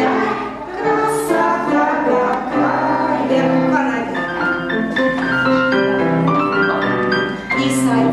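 Music: a song with piano accompaniment and singing.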